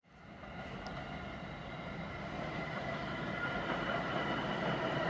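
New York City subway train running on the rails: steady rail noise with several high held tones, fading in at the start and growing slowly louder.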